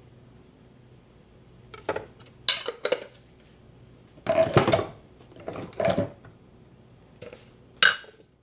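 Kitchen utensils and cookware clinking and clattering: a few sharp clinks, then two longer clattering rattles, then two more clinks near the end.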